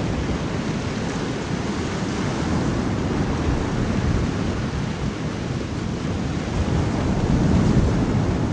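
Steady, dense rushing noise with a deep low rumble, with no distinct events.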